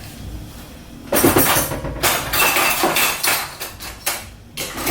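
Metal kitchen utensils clattering and clinking, starting about a second in, with one brief ringing clink in the middle, as when cutlery or knives are sorted through.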